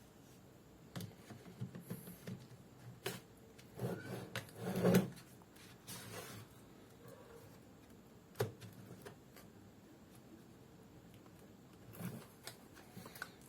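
Scattered clicks, taps and rubbing from a laptop being handled, loudest in a cluster about five seconds in, with a sharp single click a few seconds later.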